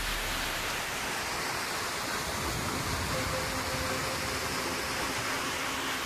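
Waterfall pouring into a rocky pool: a steady rush of falling and churning water.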